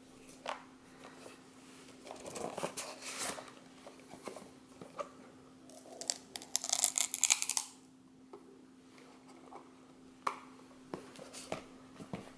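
Cardboard gift box of a toy flying spinner being handled and opened: scattered clicks and taps, a rustle early on, and a louder scraping rustle about halfway through as the lid and insert are worked loose. A faint steady low hum runs underneath.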